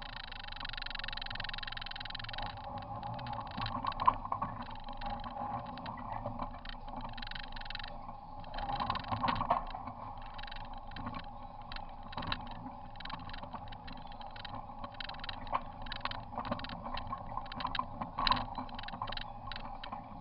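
Polaris RZR side-by-side running steadily along a rough dirt trail, its engine drone broken by frequent knocks and rattles as the machine jolts over bumps.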